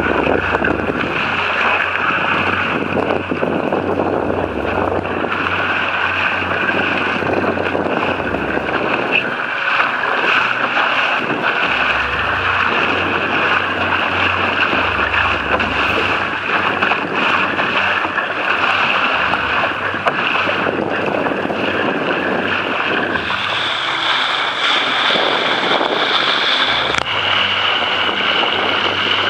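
Wind buffeting the microphone over water rushing and splashing against the hull of a sailing dinghy under way, a steady loud rush without a break.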